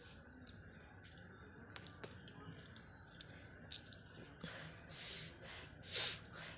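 Faint scattered mouth clicks, then several short noisy breath bursts in the last two seconds as a person starts coughing and clearing the throat to spit.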